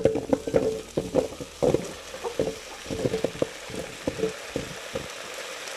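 Chopped potatoes sizzling in hot oil in a pan with onion and cumin, while being stirred: a steady sizzle with quick knocks of the utensil against the pan, which stop about five seconds in, leaving only the sizzle.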